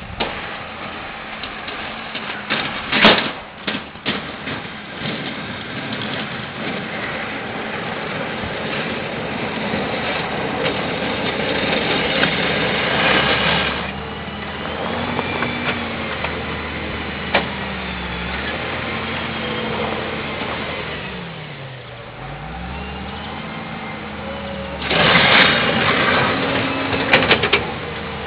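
Volvo BM L90 wheel loader's diesel engine running steadily, its revs rising and falling repeatedly in the second half. Loud sudden knocks and clatter come about three seconds in and again near the end.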